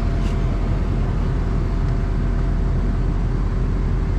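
Diesel locomotive idling, a steady low rumble that does not change.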